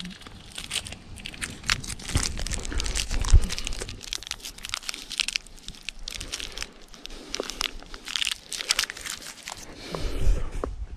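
Plastic snack-bar wrapper crinkling in the hands in irregular crackles, with crunching as the bar is bitten and chewed.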